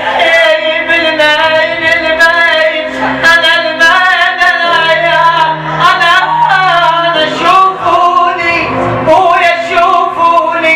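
Male singer performing an Iraqi mawwal, a free-rhythm vocal improvisation, with long wavering melismatic lines over amplified instrumental backing that holds sustained low notes.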